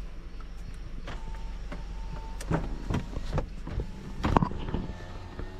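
A vehicle's steady low rumble, with a string of irregular knocks and rattles in the second half.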